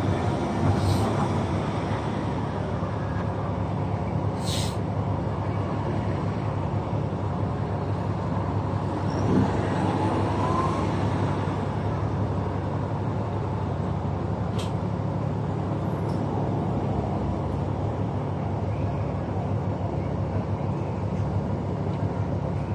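Steady low drone of heavy diesel machinery, with a few short sharp hisses and a brief rising whine near the middle.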